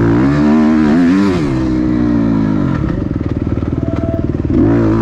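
Four-stroke dirt bike engine revving up and down under throttle, dropping about three seconds in to a slow, pulsing low-rev putter, then revving up again near the end.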